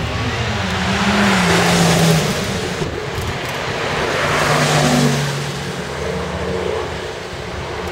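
Maserati MC12's 6-litre V12 accelerating past, loudest about two seconds in and again near five seconds, with the engine pitch falling after the first peak.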